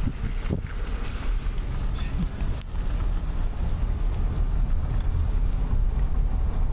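Car driving, heard from inside the cabin: a steady low rumble of engine and tyres on wet road, with one sharp click about two and a half seconds in.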